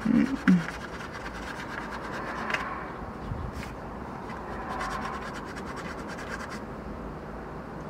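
Scratch-off lottery ticket being scratched: a rapid, continuous scraping of many short strokes as the coating is rubbed off the card.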